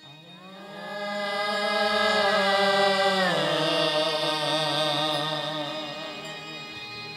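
A singer holds a long opening note of a Chhattisgarhi folk-stage song over a steady low accompanying drone. About three seconds in, the voice slides down to a lower note and holds it with vibrato.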